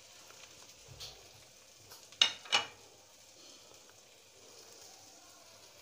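Spatula stirring ground spice masala into frying tomatoes and spices in a steel kadhai, with a faint sizzle of hot oil. Two sharp knocks of the spatula on the pan a little past two seconds in ring briefly.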